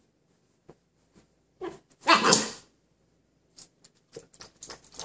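Husky puppy makes one short, loud, breathy dog sound about two seconds in, just after a smaller one, while digging in its bed. Light scratchy clicks follow near the end as it moves about.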